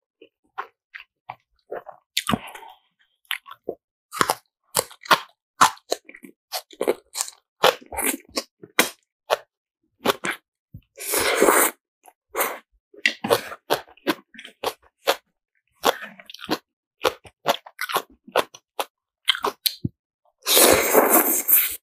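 Close-up eating sounds: wet chewing and crunching of spicy cabbage and green onion kimchi with black bean ramen noodles, a run of short sharp clicks. Two longer slurps of noodles come about halfway through and near the end.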